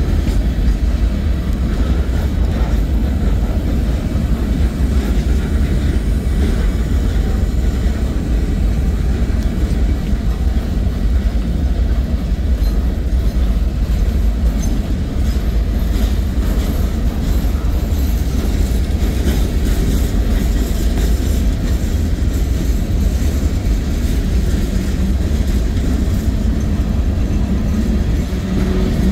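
Freight cars of a Norfolk Southern manifest train rolling past at close range: a steady, loud low rumble of steel wheels on the rails, with scattered clicks and rattles from the cars.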